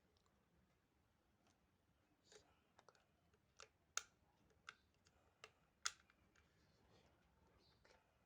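Faint, scattered sharp clicks and taps, about seven of them, the loudest about four and six seconds in.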